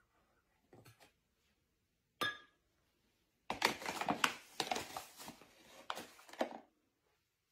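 A single light clink about two seconds in, then about three seconds of scraping and rustling strokes as flour is scooped into a measuring cup.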